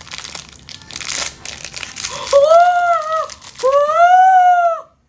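Plastic blind-box wrapping crinkling and tearing as it is pulled open. After about two seconds come two drawn-out, high-pitched vocal sounds, each about a second long, rising then falling slightly; these are louder than the crinkling.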